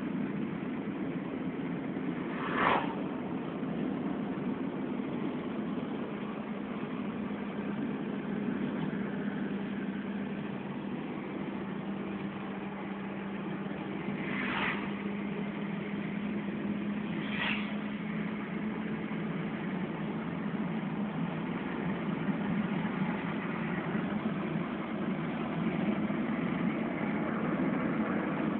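Steady road and engine noise inside a moving car's cabin, with a low engine hum that holds steady for a stretch in the middle. Three short knocks cut through it, about three seconds in and twice near the middle.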